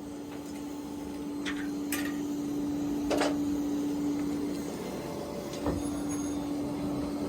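A steady machine hum over a low rumble, dropping out briefly just before five seconds in, with a few light clicks and taps.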